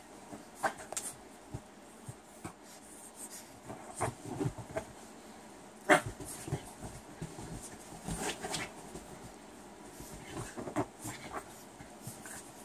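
Boston terrier puppy digging at a blanket on a couch: irregular scrabbling and rustling of paws on fabric, mixed with the puppy's own small vocal noises. One sharper, louder sound comes about six seconds in.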